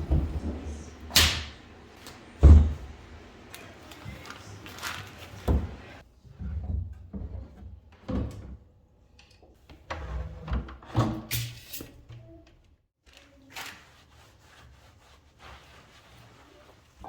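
Household handling sounds: an irregular series of knocks, thumps and clicks, like doors or drawers being opened and shut and objects being set down. The loudest thump comes about two and a half seconds in, and the sounds thin out over the last few seconds.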